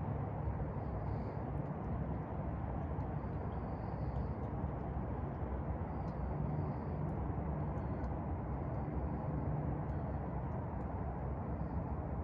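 Steady low background rumble of outdoor ambience with no distinct events, and faint high chirps here and there.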